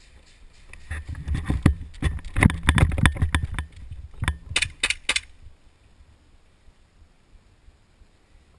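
A dense run of clicks, knocks and rattling starting about a second in, then a quick series of sharp snapping clicks about four to five seconds in.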